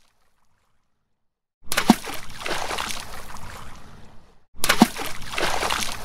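A medium-sized rock thrown into water, twice: each time a sharp plop followed by a couple of seconds of splashing as the water falls back. The first comes about a second and a half in, the second at about four and a half seconds.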